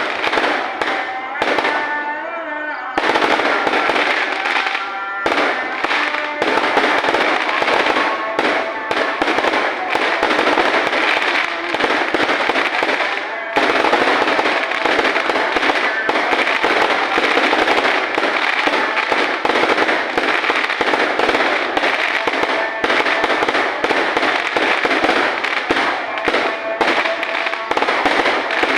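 Fireworks and firecrackers going off in a dense, continuous barrage of rapid bangs and crackles, many per second, without a break.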